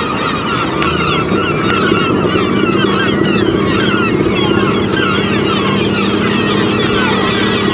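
A nesting colony of gulls screeching, many short calls overlapping without a break, over the steady drone of a small boat's motor, which grows a little stronger about a second and a half in.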